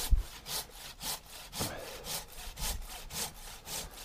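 Folding Japanese pull saw (Silky BigBoy) cutting through a birch limb in quick, even strokes, about two a second, cutting on the pull. A dull low knock comes right at the start.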